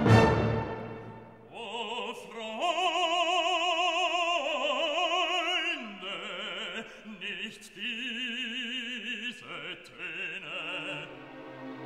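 Background music: an orchestral chord dies away, then about a second and a half in an operatic voice sings long notes with strong vibrato over the orchestra until near the end.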